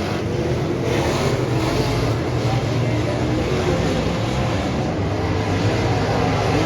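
Dirt modified race car engine running hard at speed, a steady loud drone with no let-up.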